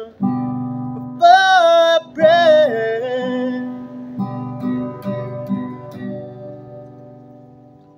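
Acoustic guitar strumming chords that ring on, with two held, wavering sung notes about a second in. The strums then turn softer and die away.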